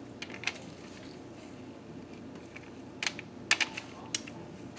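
Hand torque wrench ratcheting on the cam tower cap bolts, tightening them in stages: a few light clicks near the start, then a quick cluster of sharper clicks about three seconds in.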